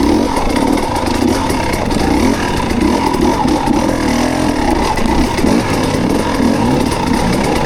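Dirt bike engine running under load, its pitch rising and falling as the throttle opens and closes.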